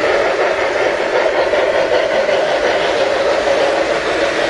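Model freight trains rolling along metal track, a steady whir of their motors and wheels.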